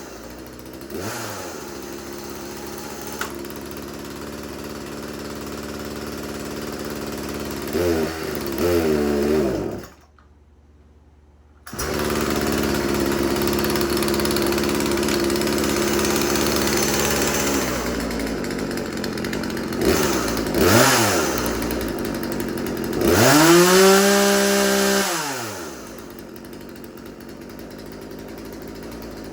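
Craftsman 36cc two-stroke chainsaw running at idle and being revved several times, its pitch climbing and then falling back with each blip; the longest and loudest rev comes after about 23 seconds. The sound cuts out abruptly for about two seconds near the middle.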